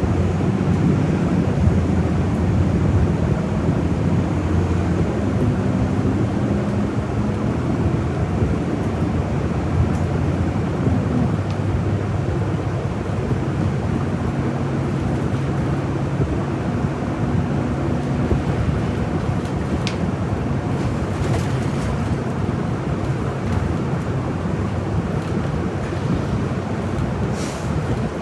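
City bus engine and road noise heard inside the cabin from the rear seats while under way, a steady low drone whose hum shifts in pitch as the bus changes speed, with a few faint ticks in the second half.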